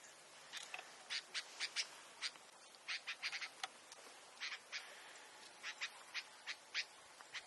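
Irregular crackling: short, sharp pops, several a second, over a faint steady hiss.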